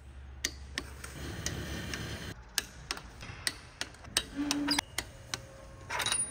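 Irregular light clicks and ticks, roughly two a second, over a low steady hum, with a brief low tone about four and a half seconds in.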